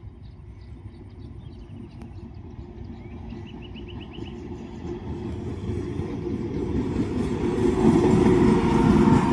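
Indian Railways train approaching along the track: its rumble and wheel noise on the rails grow steadily louder, becoming loud over the last second or two.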